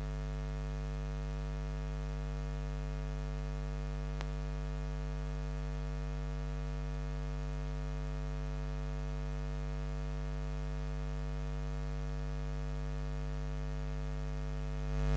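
Steady electrical mains hum from the microphone and sound system, a low buzz with a stack of steady overtones. A single faint click comes about four seconds in.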